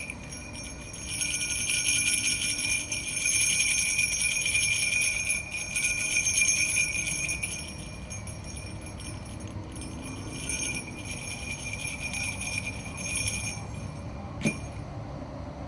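Jingle bells shaken, jingling continuously and loudest for the first half, then in weaker shakes until about two seconds before the end. A single sharp click near the end.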